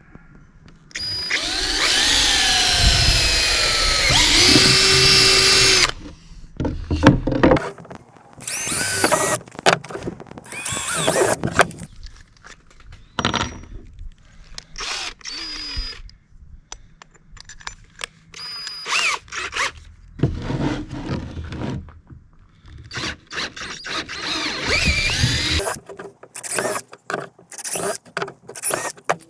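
Handheld power tool running, its motor pitch rising and falling: one long run of about five seconds near the start, then many short bursts.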